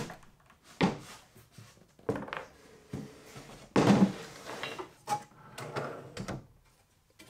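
Wooden drawers sliding in and out on their drawer slides several times, each run ending in a soft knock as the drawer shuts. The loudest close comes about four seconds in.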